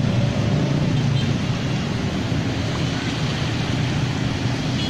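Motorcycles riding through floodwater on a city street: small engines running under a steady wash of splashing water, with general traffic noise.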